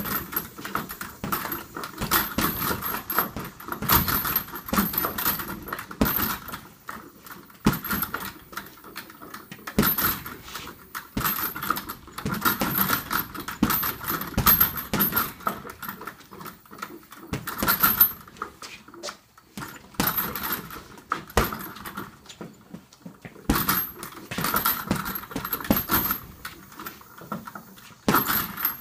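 Gloved punches landing on an Everlast heavy bag in irregular flurries of thuds, with a brief let-up about two-thirds of the way through. A metallic jingling from the bag's hanging hardware comes with the hits.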